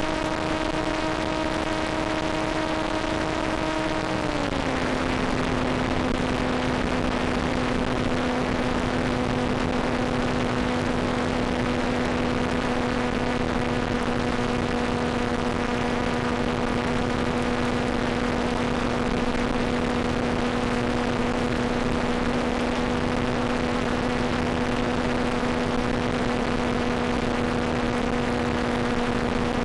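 Electric motor and propeller of a Volantex Ranger EX R/C plane droning steadily under a constant hiss, heard over the plane's video downlink. About four seconds in the pitch drops a step and then holds lower as the throttle comes back and the motor current roughly halves.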